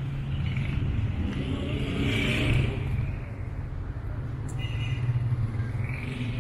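City street traffic: motor vehicle engines running with a steady low hum, and a vehicle rushing past about two seconds in.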